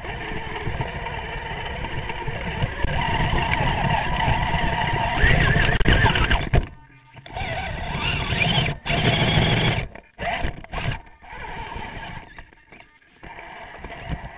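Twin electric motors and geared drivetrain of a 2.2 scale RC rock crawler whining under load, heard very close from a camera on the chassis. The sound starts and stops repeatedly, with the longest break about seven seconds in and shorter ones later.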